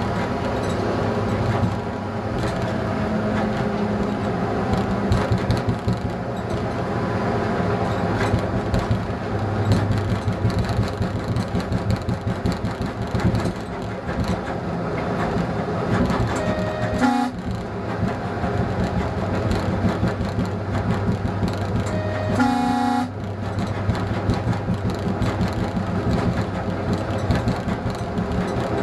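ČD class 854 diesel railcar running along the line, heard from the cab: a steady engine drone with wheel and rail noise. The horn sounds twice, a short toot about 17 seconds in and a longer blast about 22 seconds in.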